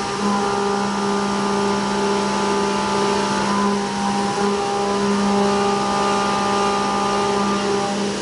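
CNC milling machine's end mill cutting a pocket along a traditional 2.5D racetrack toolpath: a steady droning cutting tone over a hiss. The tone breaks briefly twice, near the start and about halfway through, as the cutter changes direction at the toolpath's sharp corners.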